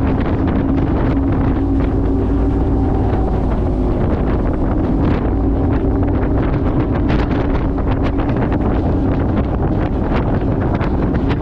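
Bass boat's outboard motor running steadily at speed, with heavy wind buffeting the microphone.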